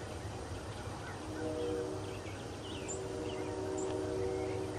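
Wild turkeys calling in a field: a call of stacked pitches about a second and a half in, and a longer one from about three seconds in, with small birds chirping high above throughout.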